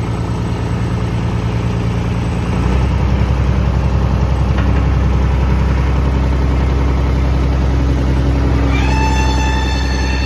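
John Deere 250 skid steer's three-cylinder turbo diesel running, its note changing and getting a little louder about three seconds in. Near the end a high, steady squeal starts from the machine's pivot pins, which are dry and need grease.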